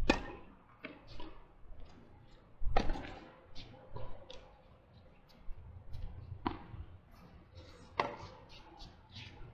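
Tennis rally: four sharp racket-on-ball hits, the first a serve at the very start, the others about 3, 6.5 and 8 seconds in, with fainter short ticks between.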